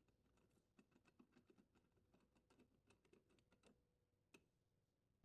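Near silence, with very faint scattered ticks and clicks of a screwdriver turning the mounting screw of a dishwasher junction box cover.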